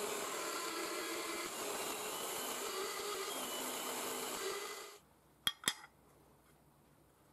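Bench drill press running and boring into a steel plate, a steady mechanical whir with cutting noise that stops abruptly about five seconds in. A moment later come two sharp clicks close together.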